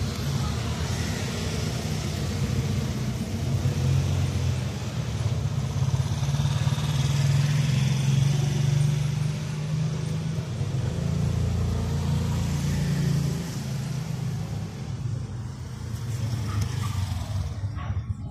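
Steady low rumble of a motor vehicle engine running, swelling louder through the middle and easing off again.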